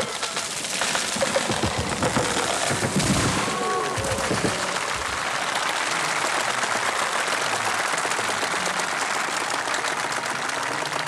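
A huge felled hinoki cypress crashing down, with cracking and heavy thuds for the first few seconds as it lands. A large crowd then applauds steadily.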